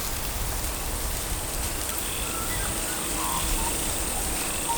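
Synthesised marshland ambience from Krotos Studio's Genesis sound pack: a steady high insect trill over a low wind rumble, with short bird or frog chirps coming in from about halfway through.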